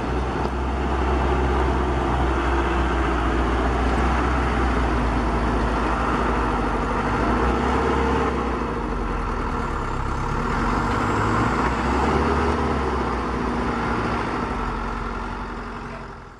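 Radio-controlled model dump trucks running, a steady engine-like drone while one tips its bed to dump sand. The drone fades out near the end.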